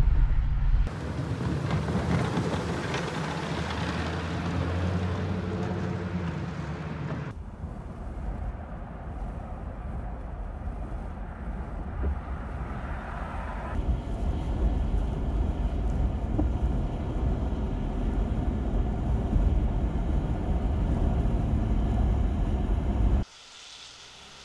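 Vehicle running noise: a steady engine hum with road and wind noise from a moving vehicle. It changes character abruptly several times and drops to a much quieter hum near the end.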